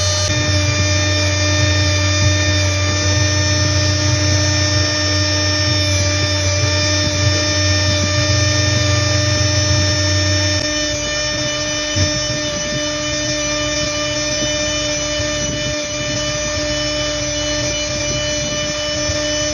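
Small electric rotary tool (mini drill) running steadily with a whine made of several constant tones, its bit held against a gold ornament. A low hum underneath stops about halfway through, and there is a single short click soon after.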